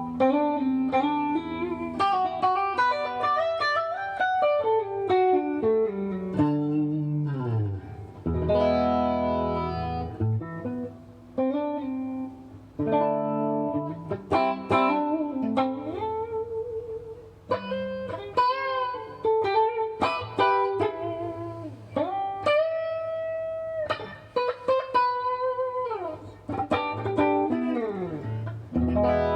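Kiesel Vader electric guitar with Kiesel Polarity pickups, played in passive mode on the middle pickup position with a clean tone. It plays melodic phrases of single notes and chords, with several slides and bends, some held notes, and short pauses between phrases.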